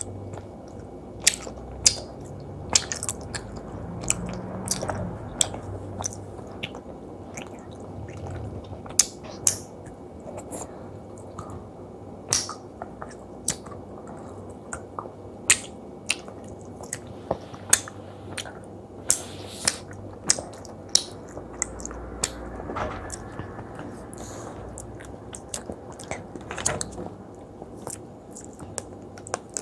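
Close-miked chewing of soft, chewy jelly candy: wet, squishy mouth sounds broken by many sharp, irregular sticky clicks.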